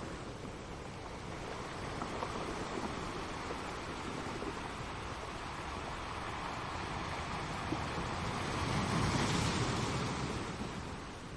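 Ocean waves washing on the shore, a steady rush that swells to its loudest about nine seconds in and then fades back.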